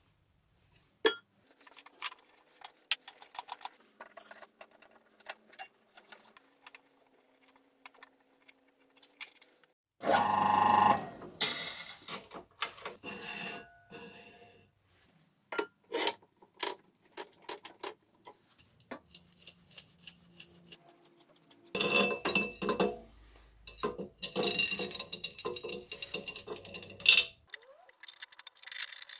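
Small metal parts (washers, nuts, a ball bearing and a threaded rod) clicking and clinking as they are handled and fitted on a metal drill press table, with knocks and scrapes of a plywood and particleboard piece. The clicks come one after another, with busier, scraping stretches about a third of the way in and near the end.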